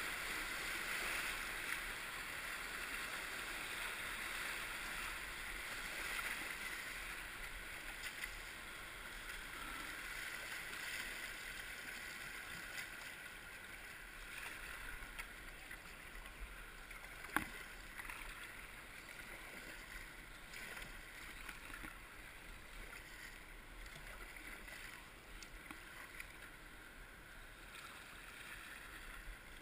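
Steady rush of whitewater around a kayak running a river rapid, fading gradually as the boat moves into calmer water. A single sharp knock about seventeen seconds in.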